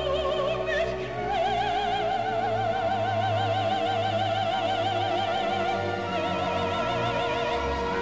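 Operatic soprano singing with orchestra: after a couple of short notes she holds a long high note with a wide, even vibrato, moving to a slightly different held note about six seconds in.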